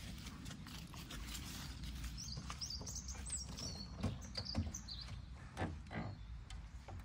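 A small bird chirping in short, high, quickly gliding phrases for a couple of seconds in the middle, over a low outdoor rumble. A few sharp knocks come near the end, louder than the birdsong.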